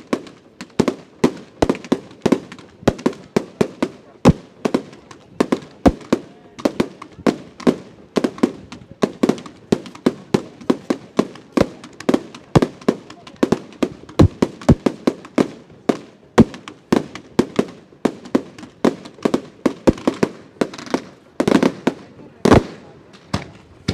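Fireworks display: aerial shells bursting in a rapid, steady barrage of sharp bangs, about two or three a second, each with a short echoing tail.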